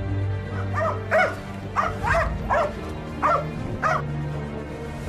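A dog barking in short, sharp barks, about seven in three seconds, over background music.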